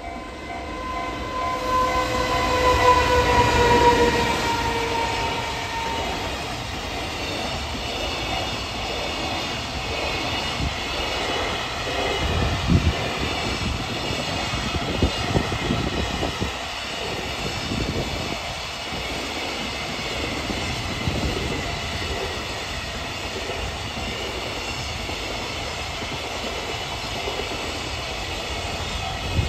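Electric locomotive hauling a long container freight train past. In the first few seconds the locomotive's whine falls in pitch as it goes by. After that the wagons' wheels rumble and clatter steadily on the rails, with some heavier knocks about midway.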